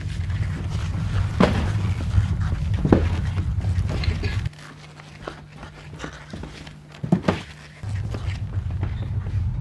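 Boxes being handled and set down: a few scattered knocks and thumps over a steady low rumble, which drops out for a few seconds in the middle.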